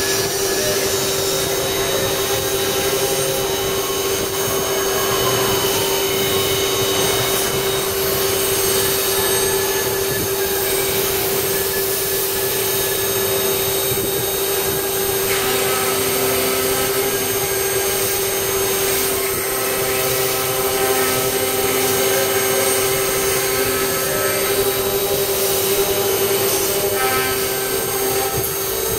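FK-103ATC-A-DH CNC woodworking router for door making running, a steady whine over loud machine noise. The sound shifts about halfway through and again near the end as the heads work a wooden door panel.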